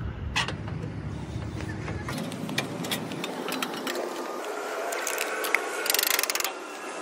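Hand ratchet wrench clicking in short runs on a bolt, with scattered metal clicks and knocks; a fast run of ratchet clicks near the end is the loudest part. A low rumble underneath fades out about two seconds in.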